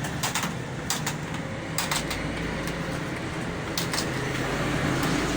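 Computer keyboard keys clicking irregularly as someone types, a few taps a second, over a steady low background noise like a fan or air conditioner.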